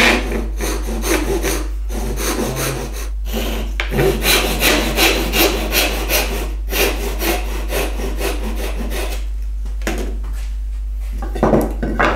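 Hand saw cutting through wood with steady back-and-forth strokes, about two to three a second, a relief cut through the middle of a halving-joint notch so the waste chisels out more easily. The sawing pauses briefly, then a few more strokes come near the end.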